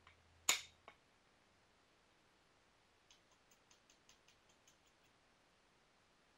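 Flintknapping on Rainy Buttes stone: one sharp strike of a knapping tool on the stone, then about three seconds in a run of about a dozen light, quick ticks.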